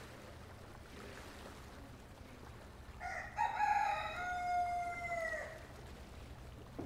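One long animal call starting about three seconds in and lasting about two and a half seconds: a short first note, then a held note that falls slightly at the end, over a faint steady low hum.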